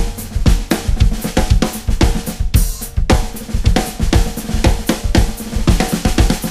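Background music: a song with a drum kit keeping a steady, driving beat of snare, bass drum and cymbals over other instruments.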